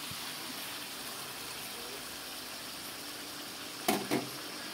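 Chicken pieces sizzling steadily in their released juices in a wok. Near the end come two sharp knocks close together.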